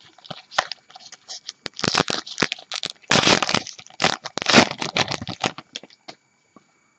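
A Topps Gypsy Queen baseball card pack being torn open by hand, its wrapper crinkling and crackling in quick bursts that are loudest about three seconds in and stop about six seconds in.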